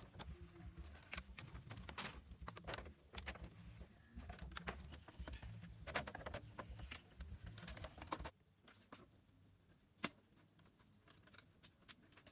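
Faint, irregular clicks, taps and knocks over a low rumble. The rumble stops about eight seconds in, and a single sharp click follows about two seconds later.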